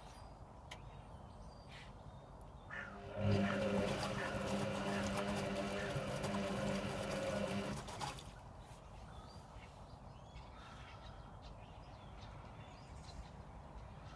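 Servis Sapphire 6055 washing machine's drum motor turning the drum during the wash tumble. About three seconds in, a steady motor hum starts and lasts about four and a half seconds, then fades back to the machine's quiet background.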